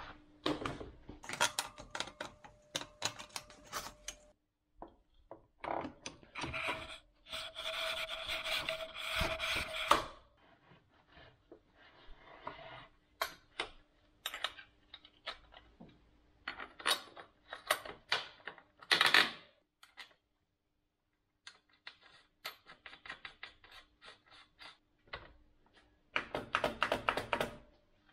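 Hand work on a Honda XR400's rear wheel as it goes back into the swingarm: metal clinks, scrapes and knocks from the axle, spacers and brake caliper bracket, in irregular bursts with pauses. There is a denser stretch of scraping about a quarter of the way in and a quick run of clicks near the end as the axle nut is threaded on, with a faint steady hum underneath.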